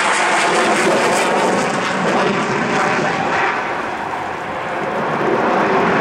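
Jet noise from a Mitsubishi F-2 fighter's single F110 afterburning turbofan during a high-G turn: a loud, steady rushing noise that dips briefly about four seconds in and then swells back.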